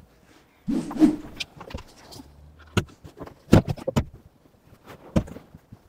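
Upholstered cushions and a hinged wooden panel of a motorhome's folding side seat being handled and repositioned: a soft low thud about a second in, then several sharp clicks and knocks, the loudest about halfway through.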